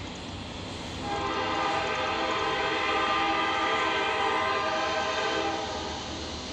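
Norfolk Southern AC44C6M locomotive's air horn sounding one long chord blast, starting about a second in and fading out near the end, over the steady rumble of the approaching train.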